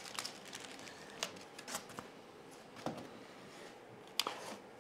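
Plastic packaging bag rustling while a boxed 3D-printer filament unit is handled, with a few sharp light clicks and knocks spread through it.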